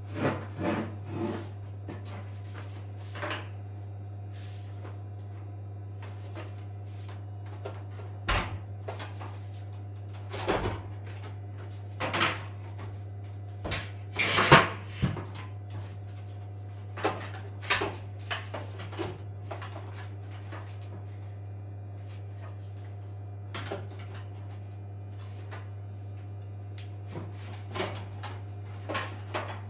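Irregular knocks and clunks of parts and tools being handled while working on a washing machine, over a steady low hum.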